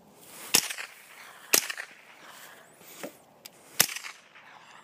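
Smith & Wesson M&P 15-22 .22 LR semi-automatic rifle firing four single shots, each a sharp crack with a short echo, unevenly spaced about a second apart; the third is weaker than the others.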